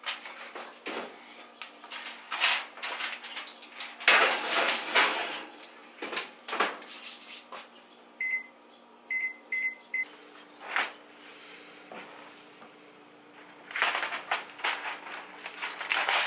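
Kitchen handling noises: knocks and clunks of a baking pan and oven door, then four short electronic beeps from the range's oven keypad as the oven is set to 350 degrees. Near the end, aluminium foil crinkles on the baking pan.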